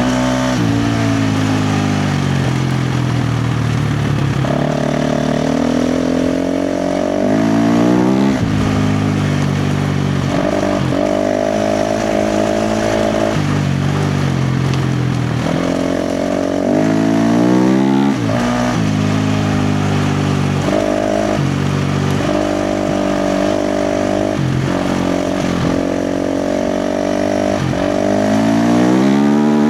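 KTM 350 XC-F dirt bike's single-cylinder four-stroke engine under hard throttle on a trail ride. The pitch climbs and falls over and over as the rider opens and closes the throttle.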